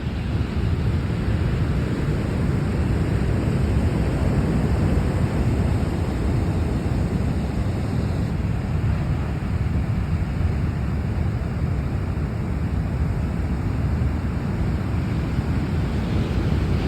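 Large ocean waves breaking and washing ashore: a steady surf noise, heaviest in the low end, with no pauses.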